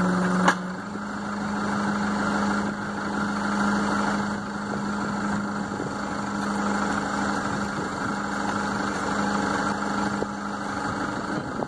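Boom truck's engine idling steadily. About half a second in there is one sharp knock, and the engine speed steps up slightly and holds there.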